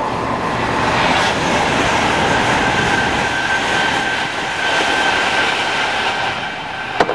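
Class 390 Pendolino electric train passing at speed: a steady rush of wheel-on-rail and air noise with a thin high whine over it, swelling as the carriages go by.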